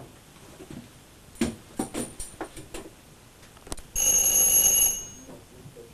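Electric doorbell ringing once, a steady high-pitched tone held for about a second near the end, someone at the door waiting to be let in. Before it, a few light knocks and clicks.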